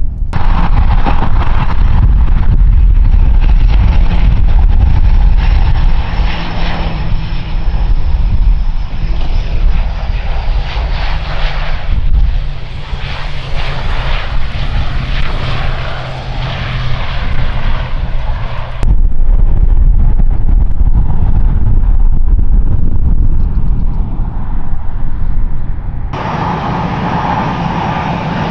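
Twin-turboprop engines and propellers of an ATR 72 running loudly close by, a dense steady noise with a low hum. The sound changes abruptly several times where the footage is cut, and near the end it gives way to a quieter, different aircraft engine sound.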